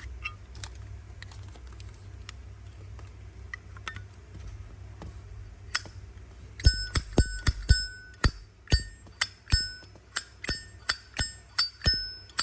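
Zippo lighter lid flicked open and snapped shut over and over in the second half, about two clicks a second. Many openings give a short metallic 'bell' ring, the clear lid chime that collectors listen for. A few faint handling clicks come before.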